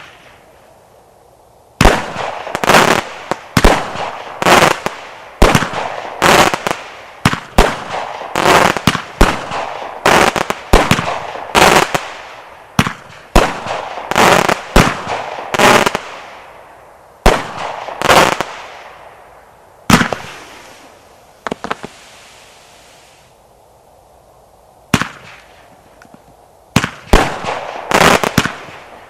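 An 81-shot multishot firework cake firing a rapid barrage of loud bangs, each shot fading away over a second or so. The shots pause for a few seconds about three-quarters of the way through, then resume.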